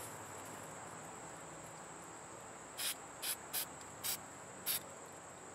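Rust-Oleum camo spray-paint can hissing in five short bursts, dusting paint through a sprig of foliage held on the rifle as a stencil. A steady high chirring of crickets runs underneath.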